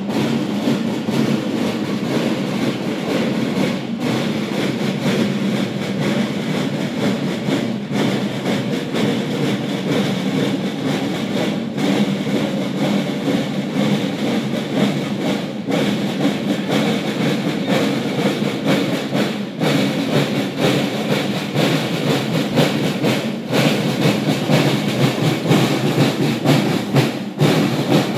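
A marching snare drum corps playing a fast, continuous march cadence. The pattern repeats, with a short break about every four seconds.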